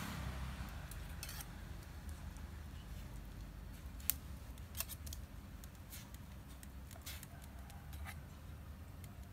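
Metal ladle and wire strainer clicking against a stainless-steel pot while meat is stirred and lifted in boiling water, a handful of separate sharp clinks over a low steady rumble.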